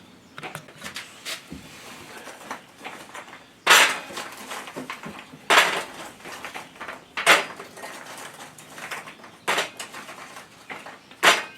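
Charcoal briquettes clattering into a metal chimney starter by the handful: five sharp clatters about every two seconds, with softer rustling and scraping of coals between.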